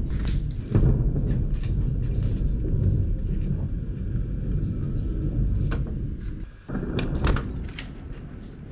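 Rain on a GoPro's waterproof housing: a dense, muffled low rumble with many scattered sharp taps of drops hitting the case. The sound dips briefly and cuts back in sharply about six and a half seconds in.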